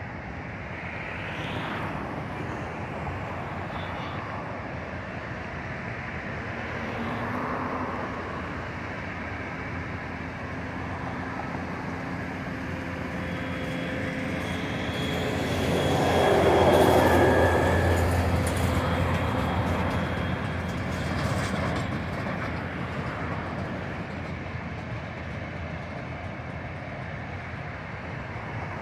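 Jet engines: a Boeing 747-400's four engines at takeoff thrust, a steady rumble across the airfield as it rolls and lifts off. A taxiing Airbus A320-family jet passes close by about halfway through, its engine noise and whine swelling to the loudest point and then fading.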